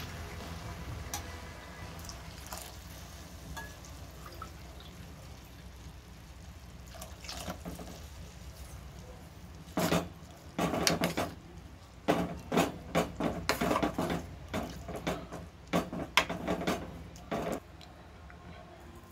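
Steel spoon stirring a watery khichdi of oats and moong dal in a steel pot, scraping and clinking against the sides with a wet slosh, in a quick run of strokes from about halfway through until shortly before the end. A low steady hum runs underneath.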